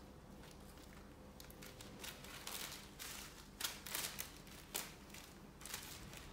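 Small plastic zip bags of diamond-painting drills crinkling and rustling as they are picked up and sorted by hand, in a string of short rustles starting about a second and a half in.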